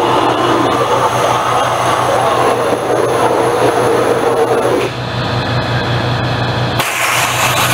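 Waterjet cutting head running through aluminum plate: a loud, steady hiss with a low hum under it. About five seconds in the sound thins a little, and near the end the hum drops out and the hiss turns brighter.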